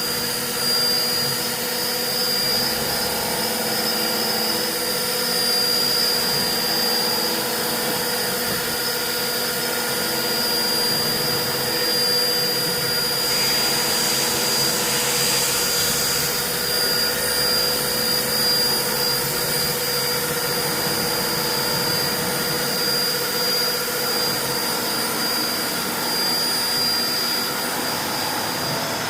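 CNC vertical machining centre running, a steady machine noise with a held high whine and a lower hum over a hiss. About thirteen seconds in, a burst of high hiss rises over it for about three seconds.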